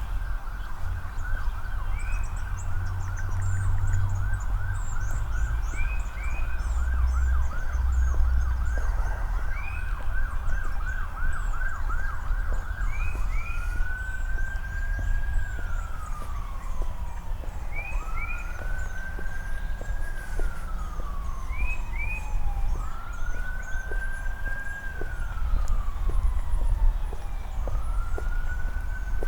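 An emergency vehicle siren sounds a rapid yelp, then switches about halfway through to a slow wail, rising and falling roughly every four and a half seconds. Birds chirp in short paired notes over it.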